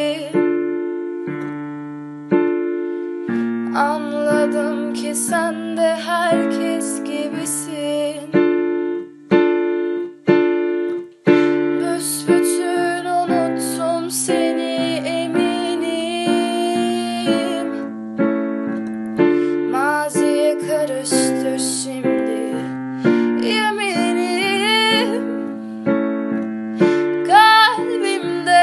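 Piano playing an instrumental passage of a slow song, with a woman's wordless singing over it in the later part.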